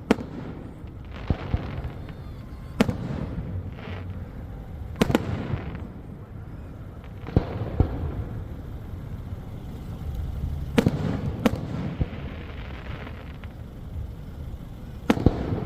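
Fireworks shells bursting: sharp bangs every one to three seconds, several followed by a crackling fizz, over a steady low rumble.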